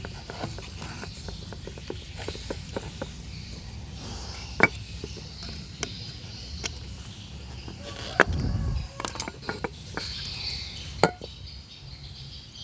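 Scattered small clicks and taps of hard objects being handled, with three sharper knocks, about five, eight and eleven seconds in, and a brief low rumble with the second knock.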